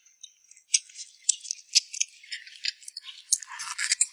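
Close-up eating sounds from gnawing spicy braised pig's trotters: irregular wet clicks and smacks of the mouth on sticky skin, getting busier near the end.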